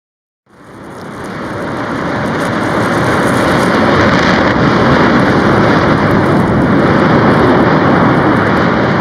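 A volcanic eruption: a loud, steady roar of ash venting that swells in over the first few seconds and begins to ease near the end.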